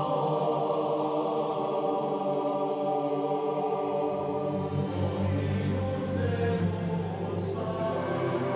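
Background music of sustained, choir-like voices holding long notes.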